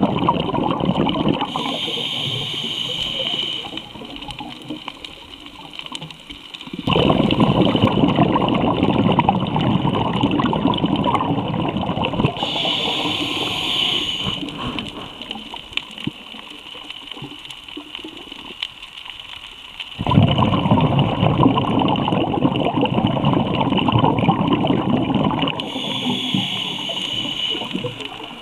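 Underwater sound of a diver breathing through a scuba regulator: a short hiss on each inhale, then several seconds of bubbling, rushing exhaust. Three breaths, about twelve seconds apart.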